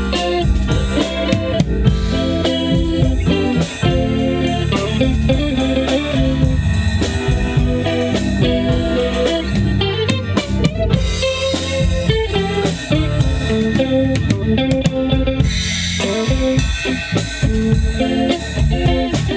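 A live band playing: guitar over a drum kit with kick and snare, and an organ.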